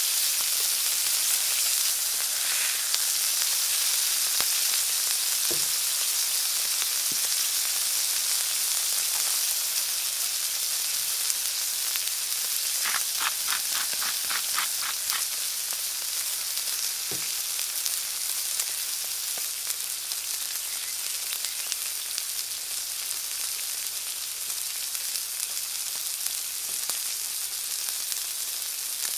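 Ribeye steak sizzling in butter on a hot flat steel griddle: a steady frying hiss that eases slightly over time, with a short run of about eight quick ticks about halfway through.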